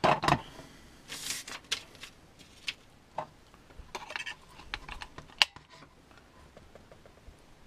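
Scattered plastic clicks and taps from a small hand-held RC car transmitter being handled, with a brief rustle about a second in and one sharper click about halfway through.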